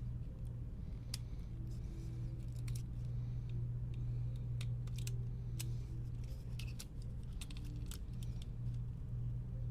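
Irregular small clicks and taps of plastic and metal parts being handled inside an opened PS5 DualSense controller, over a steady low electrical hum.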